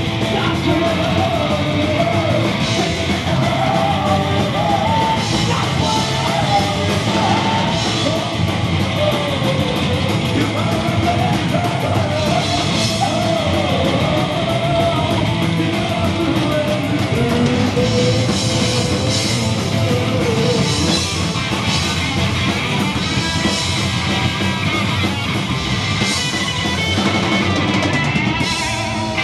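Live punk rock band playing: sung vocals over upright double bass, electric guitar and a drum kit, loud and steady throughout.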